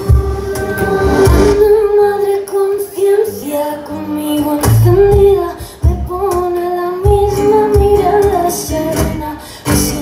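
A woman singing a slow song in long held notes, accompanied by strummed acoustic guitar, in a live concert performance.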